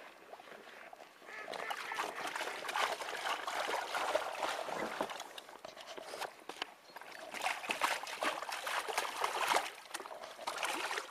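Lake water sloshing and splashing around a fabric carp-retaining sling as it is lowered into the shallows and lifted back out, water streaming off it. It comes in two spells, starting about a second and a half in and again about seven seconds in.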